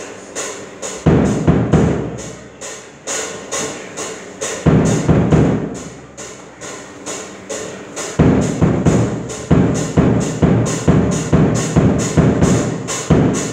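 Live band jamming: a drum kit keeps a steady beat with a cymbal struck about three times a second, and electric guitar chords come in and out, staying in from about eight seconds in.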